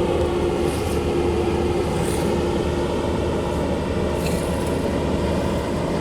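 Steady running of construction machinery engines, a constant hum with a steady droning tone and no change in pitch.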